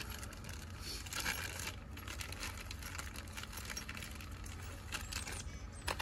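Faint clinks and rustling of small tools and a rag being handled, with brief scratchy rustles about a second in and again near the end.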